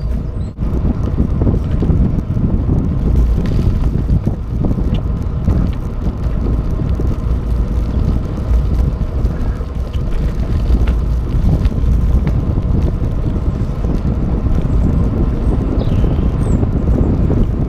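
Wind buffeting the microphone of a camera carried on a moving bicycle: a loud, steady, gusty rumble.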